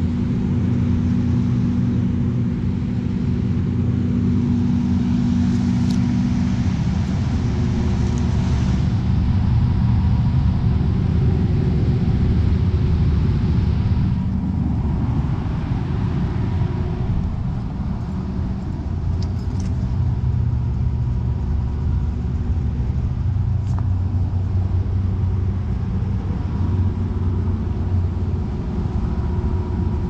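Fans of a large multi-fan air-cooled condenser running: a steady low motor hum with a rush of moving air.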